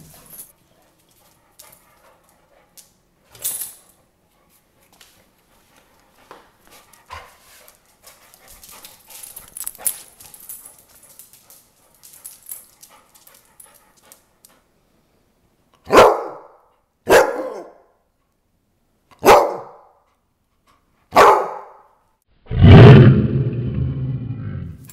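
Basset hounds at play: faint scuffling, then four short loud barks about a second or two apart, and a longer, deeper bark near the end.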